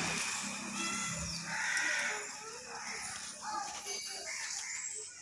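Outdoor ambience: a passing vehicle's engine hum fades away over the first second or so, then scattered animal calls follow, with one longer call about two seconds in.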